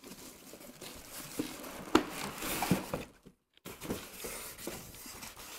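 Rustling and scraping of packaging being handled: polystyrene packing, plastic wrapping and cardboard moved about inside a box, with a sharp knock about two seconds in.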